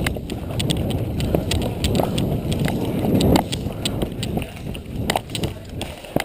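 Footsteps of a person moving quickly over the ground, with rustling and rattling of gear and scattered sharp clicks; loudest about three seconds in.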